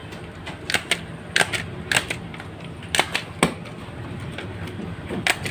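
Sheets of photocopy paper being flipped and collated by hand: crisp paper snaps and rustles, about seven of them at irregular intervals, over a steady low hum.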